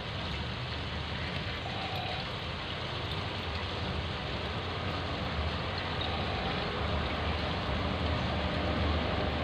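Steady background noise: an even hiss with a low rumble underneath, with no clear single event.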